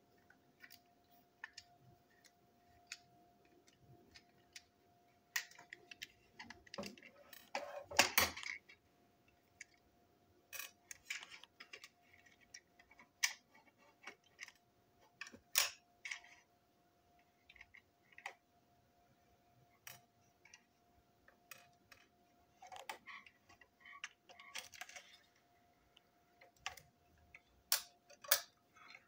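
Small clicks, taps and rattles of plastic and metal toy-train parts being handled and pulled apart by hand, with small pieces set down on a tabletop; the busiest rattle comes about eight seconds in. A faint steady hum runs underneath.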